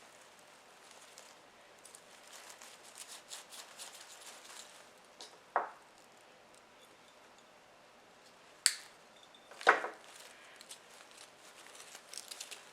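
Ribbon of a bow rustling and crinkling as it is handled and fastened, with three sharp clicks or snaps in the middle.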